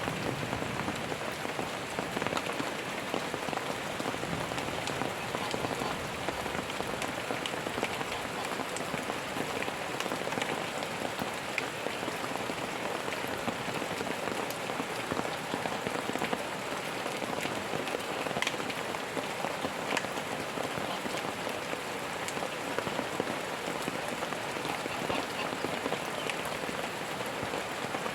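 Steady rain falling, an even hiss with scattered sharper ticks of single drops striking a surface.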